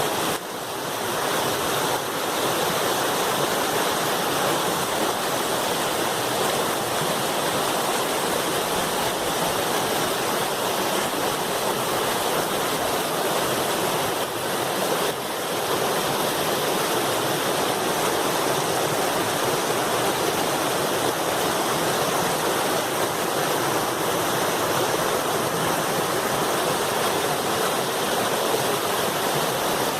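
Loud, steady rushing of river water pouring over a rocky drop, a small waterfall, with no let-up apart from brief dips near the start and about halfway.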